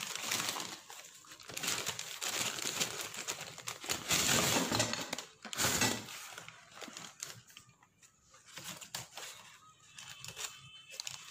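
Newspaper wrapping and a plastic bag crinkling and rustling as fried snacks are unwrapped, loudest in the first six seconds, then lighter, scattered handling of the paper.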